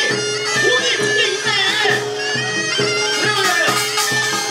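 Korean traditional wind music: a nasal reed sound plays a sliding, wavering melody over one steadily held note.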